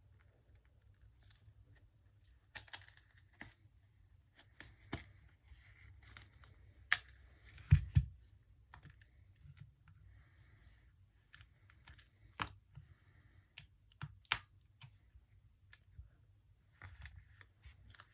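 Scattered small clicks, taps and light scrapes of small repair tools and screws against an iPhone and a tabletop, with a few sharper knocks spread through.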